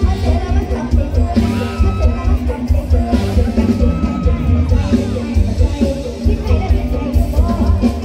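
Loud live concert music: a steady, heavy bass beat with a singer's voice over it.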